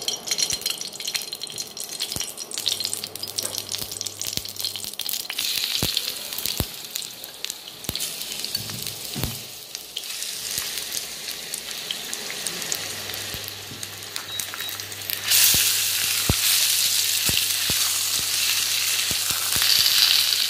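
Hot oil sizzling and crackling in a steel kadai as freshly washed raw chicken pieces go in to fry, with many sharp pops. The sizzle grows much louder about fifteen seconds in.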